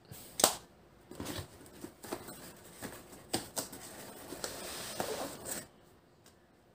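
A cardboard shotgun box being handled and closed: scraping, rustling cardboard with a few sharp taps, stopping near the end.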